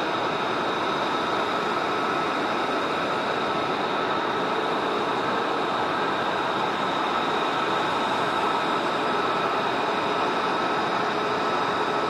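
Fighter jet engines running steadily on the ramp: an even rush of noise with a steady high whine over it.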